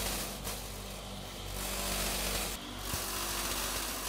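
Saw table's electric motor running steadily, turning its V-belt and pulley drive to the blade shaft: a steady hum under a noisy whir.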